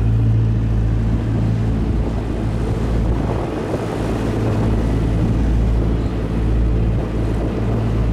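Small fishing boat's engine running steadily under way, a constant low drone, with the rush of water along the hull.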